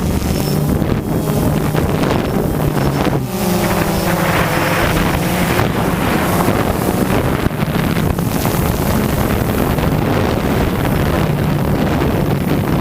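DJI Phantom 2 quadcopter's electric motors and propellers humming steadily in flight, their pitch shifting briefly a little over three seconds in, under heavy wind noise on the microphone.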